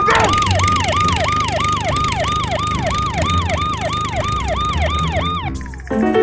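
Emergency-vehicle siren sound effect: a quick falling wail repeating about three times a second over a low rumble. It stops near the end, where music comes in.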